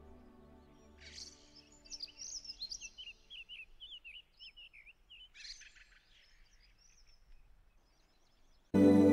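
Bird song, a run of quick chirping, warbling notes, as soft background music fades out. After a short gap, a loud new-age music track starts abruptly near the end.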